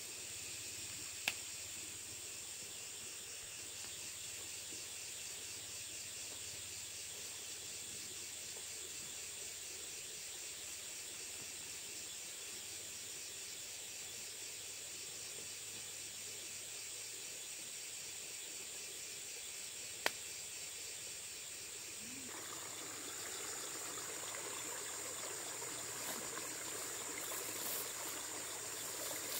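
Steady, high chirring of insects, with two sharp clicks, one early and one about two-thirds of the way through. Soon after the second click a louder, broader rushing noise joins in.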